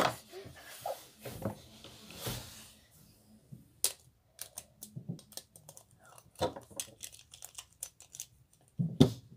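Small plastic parts of a Luinor Beyblade Burst spinning top clicking and tapping as they are handled and snapped together by hand. The clicks come in a quick, irregular run through the second half, with the loudest near the end.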